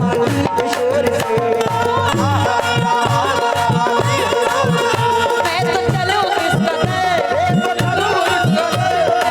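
Instrumental qawwali-style music: a tabla beats a steady rhythm, its low strokes bending in pitch, under a sustained harmonium melody.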